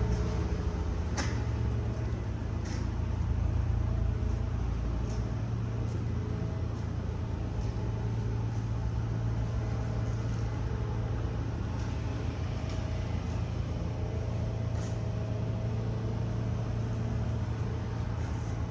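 Pressure washer running steadily with a low, even hum while its jet sprays on concrete, a few faint clicks standing out over the hiss.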